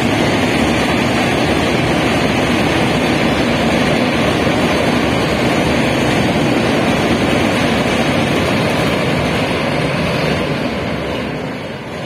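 Passenger train coaches rumbling steadily as they run across a girder bridge, fading near the end as the last vehicles clear the bridge and move away.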